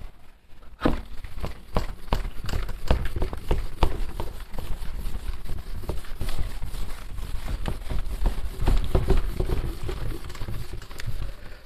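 Handheld eraser rubbed quickly back and forth across a whiteboard, wiping off marker writing in a run of short scrubbing strokes, several a second. It starts about a second in and stops just before the end.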